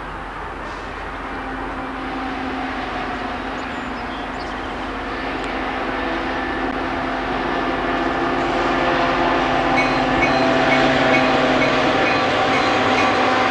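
Diesel-hauled VIA Rail passenger train approaching and passing. The locomotive's engine drone grows steadily louder, then the passenger cars roll by.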